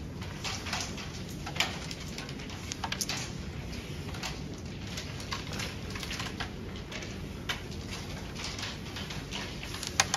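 Carrom striker and coins clicking on a wooden carrom board, with light taps and one sharp crack near the end as a striker shot hits the coins. A steady low hum runs underneath.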